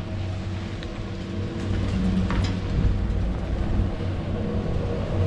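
Chairlift machinery running as the chair nears the top terminal: a steady mechanical hum over a noisy rumble, with a short clack about two and a half seconds in.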